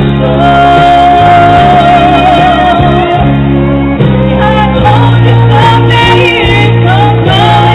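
A woman singing into a microphone over loud instrumental accompaniment with a strong bass line. She holds one long note for the first three seconds or so, wavering at its end, then sings shorter phrases.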